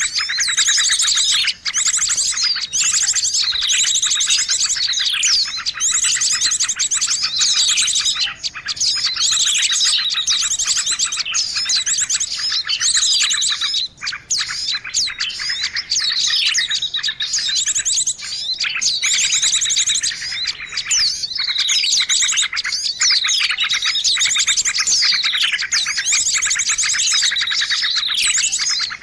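A dense chorus of small songbirds chirping and trilling without pause, many calls overlapping, with quick falling whistles: a bird-lure recording made to draw small birds in.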